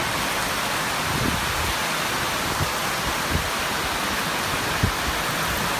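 Heavy rain falling in a steady, even hiss, with a few louder drips landing here and there.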